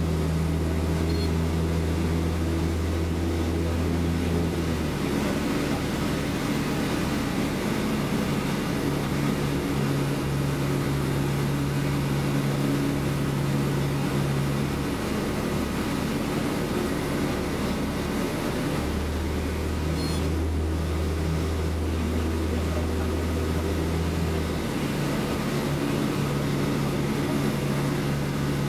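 Piper PA-38 Tomahawk's four-cylinder Lycoming engine and propeller droning steadily, heard inside the cabin, its tone stepping abruptly between levels a few times.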